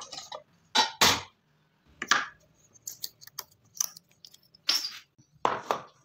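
A string of light wooden knocks and clicks, about eight of them at uneven intervals, as small wood pieces and a hold-down clamp are handled and set down on a table saw's top. The saw blade is not running.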